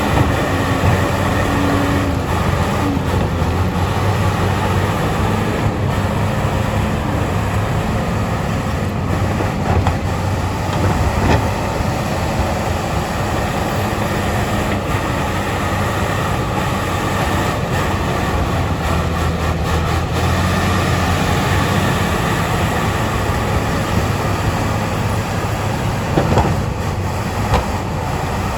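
Bulldozer diesel engine running steadily under work, a continuous heavy drone with a low hum.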